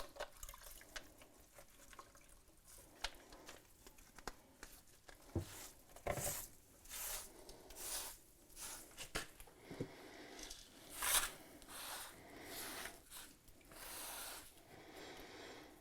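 Mason's trowel scraping and pressing wet mortar in irregular strokes, with a few sharp knocks of tool on masonry.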